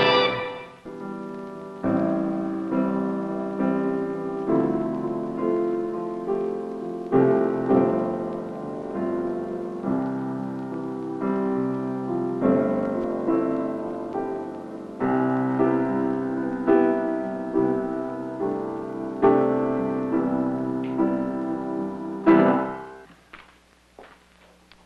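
The last of the theme music fades away, then a solo piano plays a slow run of chords, each struck and left to ring. The piano breaks off near the end.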